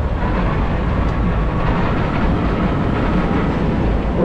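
Loud, steady rumble of a modified pulling tractor's engine running.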